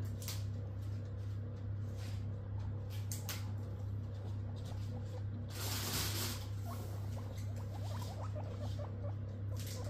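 Guinea pigs rustling and pattering through hay, with a louder rustle about six seconds in, then small crunching sounds as they munch lettuce; a steady low hum lies underneath.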